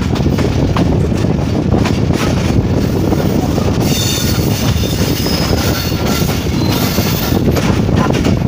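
Moving passenger train heard through an open carriage window: a steady rumble of steel wheels on the rails with scattered clicks. From about four seconds in, a high-pitched wheel squeal rides over the rumble for several seconds.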